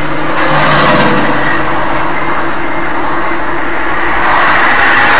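Vehicle on the move: steady engine and road noise, with a low engine hum that fades about halfway through.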